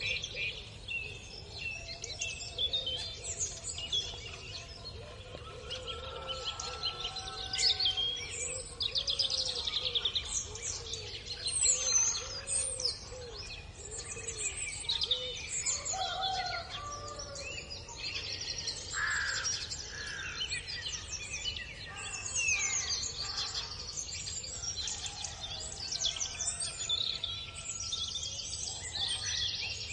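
Many small songbirds chirping and twittering on and off throughout, in short high-pitched calls and trills. A run of lower, soft wavering calls sounds between about five and twelve seconds in.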